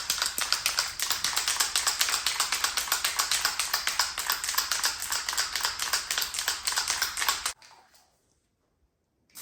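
Rattle of the mixing ball inside a 2K SprayMax epoxy primer aerosol can being shaken hard, a fast, even clatter that stops abruptly about seven and a half seconds in. The shaking mixes the just-activated two-component primer before spraying.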